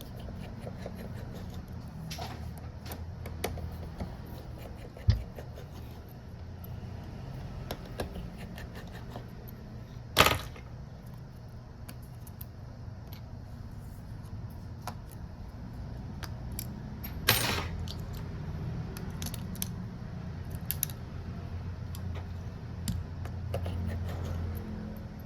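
Small metal repair tools clicking and tapping against a phone, with three sharper knocks, over a steady low hum.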